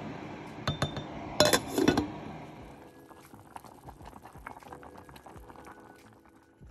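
A pot of mung beans boiling hard and stirred with a wooden spoon in a stainless steel pot, with several loud knocks and clinks against the pot about one to two seconds in. The bubbling and stirring fade to a few faint ticks after about three seconds.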